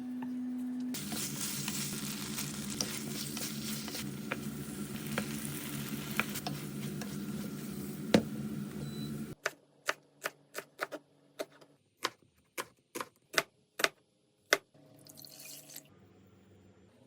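Food sizzling in a pan over a steady low hum. It cuts off suddenly about nine seconds in, and about a dozen sharp clicks or knocks follow at uneven spacing.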